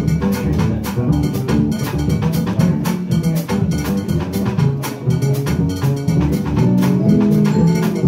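Live jazz from a guitar, upright bass and drum kit trio: the upright double bass is plucked under steady drum and cymbal strokes.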